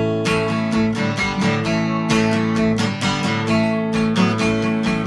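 Acoustic guitar strumming chords in a quick, steady rhythm, several strokes a second, the chords ringing on between strokes.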